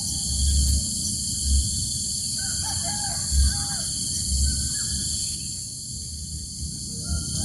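A few short bird calls in the middle, over a steady high-pitched insect chorus, with low thumps of wind on the microphone.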